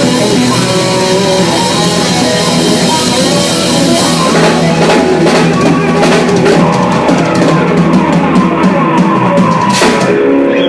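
Loud rock music with drum kit and guitar, the drums and cymbals getting busier about halfway through.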